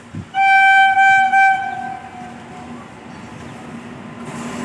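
Horn of a WAP-7 electric locomotive sounding a single high tone in three quick blasts over about a second, then trailing off. Near the end the rumble of the approaching train grows louder.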